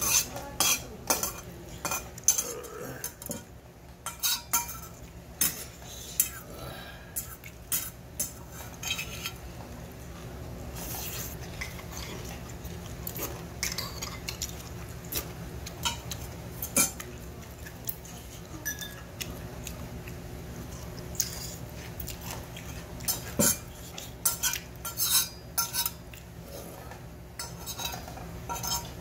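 A metal spoon clinking and scraping against a stainless steel bowl in short, irregular strikes while rice is scooped from the tilted bowl. A steady low hum runs underneath.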